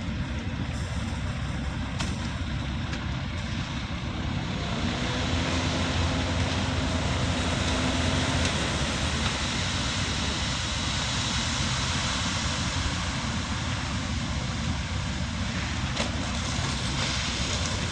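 Concrete truck's diesel engine running steadily, with a low hum that strengthens for a few seconds in the middle.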